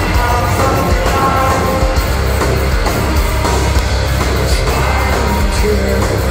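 Metal band playing live and loud: distorted electric guitars, bass and drums, with a heavy low end and no break.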